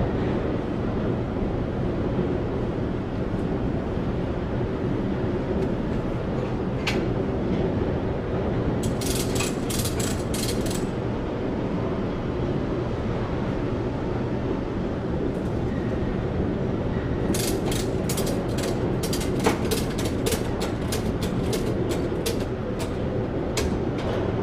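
Ratchet buckle of a load-securing strap being worked to tighten the strap over the paper reels: two runs of quick sharp clicks, a short one around the middle and a longer one through the second half, over steady background noise.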